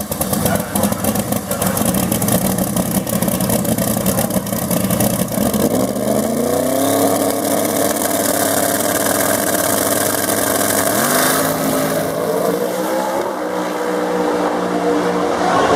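Door-slammer drag car's engine at full power. It starts as a loud, rough crackle, then the pitch climbs sharply about five seconds in as the car pulls away, and rises again twice more as it runs down the strip.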